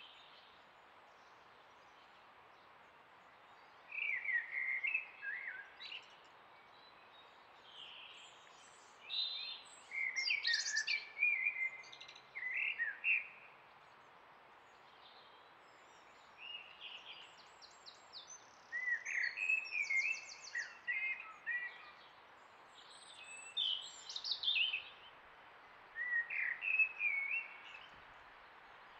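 Songbirds singing in short, quick phrases of chirps and slurred notes, a burst every few seconds, with a fast high trill near the middle, over a steady faint hiss.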